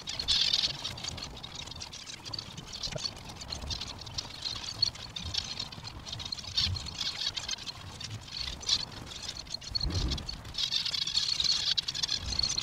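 Zebra finches calling in a dense, high-pitched chatter, busiest at the start and again near the end, with a few low bumps.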